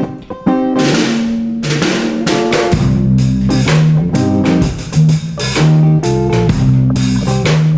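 Background band music: a drum kit keeping a steady beat over guitar and a moving bass line, with the drums coming in about a second in.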